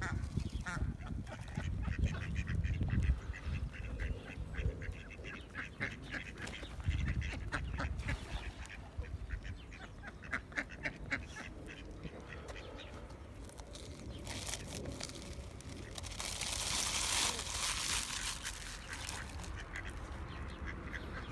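Mallard ducks quacking in runs of short calls, with a stretch of rustling hiss about two-thirds of the way through.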